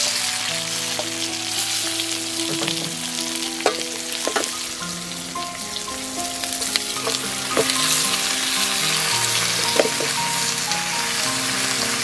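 Sliced tomatoes, chilies and shallots sizzling loudly in hot oil in a wok, stirred with a wooden spatula, with a few sharp knocks of the spatula against the pan.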